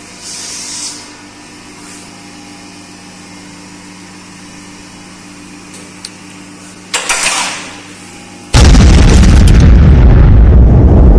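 Espresso machine: a steady low hum, a short hiss about seven seconds in, then from about eight and a half seconds a very loud, noisy blast that overloads the recording.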